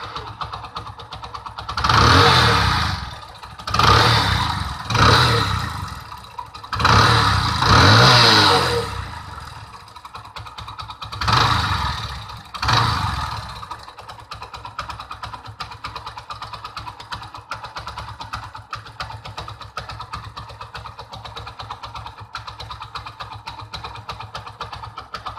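Mahindra Centuro's single-cylinder four-stroke engine idling with a fast, even ticking clatter. It is revved about six times in the first half, then settles back to a steady idle. The irritating noise persists despite a new timing chain kit.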